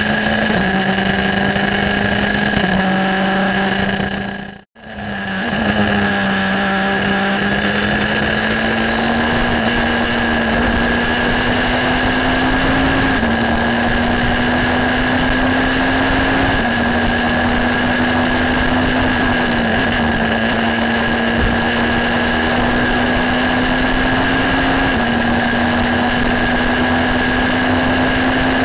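Onboard sound of a Ligier JS53 EVO2 sports prototype's engine running at high speed under load, with wind and road noise. The pitch climbs slowly with a few small drops as the car accelerates. The sound fades out and straight back in about five seconds in.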